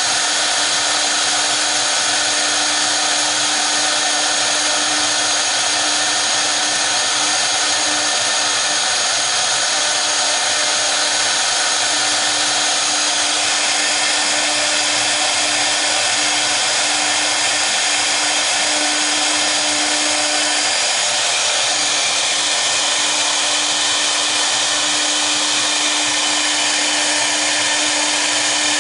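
Both spindles of a 1325 double-spindle CNC router running steadily, V-bits engraving a wooden board: a constant hum with high whine over an even cutting hiss.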